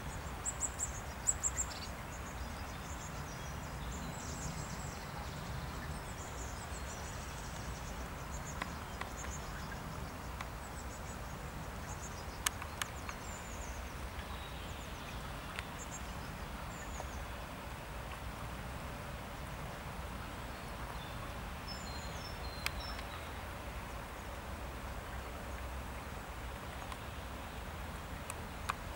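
Outdoor ambience of steady light rain hissing, with faint high chirping through the first ten seconds and again briefly about twenty-two seconds in, and a few sharp ticks.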